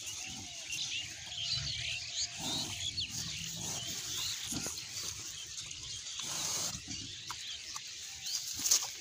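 A herd of pigs grunting low and intermittently as they root and feed among dry leaves, with steady rustling underneath.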